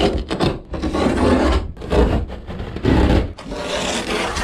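A blade sawing through carpet glued to a boat's hull lining, in about five rough cutting strokes with short pauses between them.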